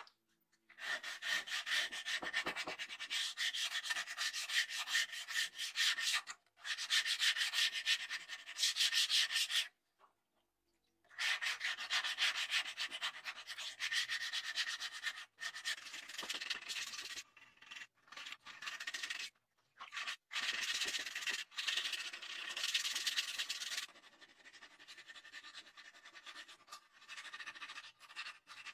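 Sandpaper rubbed back and forth in quick strokes along a wet, rusty steel sword blade, a dense scratchy rasp. It pauses for about a second near ten seconds in and breaks off briefly several times later.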